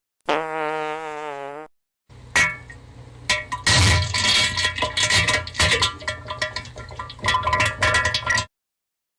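Two meme sound effects, one after the other. First comes a buzzy tone that wobbles in pitch for about a second and a half. After a short pause comes a busy clip of clattering hits mixed with pitched notes, lasting about six seconds.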